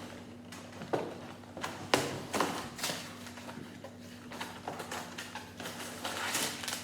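Small cardboard LEGO set box being opened by hand, with irregular taps, scrapes and rustles as the flaps are worked open. The rustling thickens near the end as the contents are handled. A faint steady hum sits underneath.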